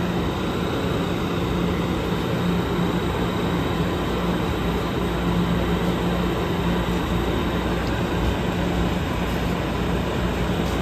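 Amtrak Pacific Surfliner train standing at the platform with its equipment running: a steady rushing hum with a low, constant drone.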